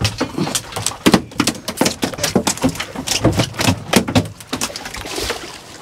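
Freshly landed dorado (mahi-mahi) flopping on a fiberglass boat deck, its body and tail slapping in a rapid, irregular run of knocks.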